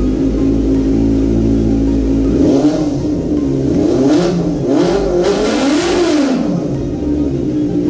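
Benelli 600i inline four-cylinder engine with twin silencers, loud and freshly started, holding a steady idle, then blipped about five times from a little past two seconds in, the revs rising and falling each time.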